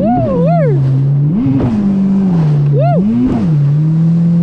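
Jet ski engine running at speed, its pitch rising and falling every second or so as the craft rides over choppy water.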